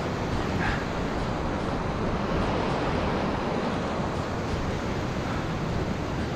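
Steady rushing noise of wind buffeting the microphone in heavy rain.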